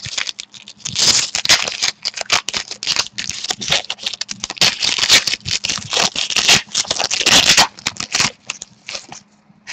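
A trading-card pack being opened and the cards handled: wrapper crinkling and tearing, with cards scraping and rattling. The handling noise is dense and busy, then thins out about eight seconds in.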